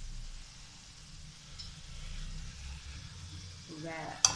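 Faint sizzling of onions and tomatoes in water heating in a metal kadhai on a high flame. Near the end there is a brief scrape and then a sharp tap of the spoon against the pan as a spoonful of curry powder goes in.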